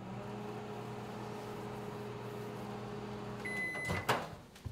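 Microwave oven running with a steady hum; a little over three seconds in it stops with a single beep at the end of the cycle, followed by a click and knock from the door being opened.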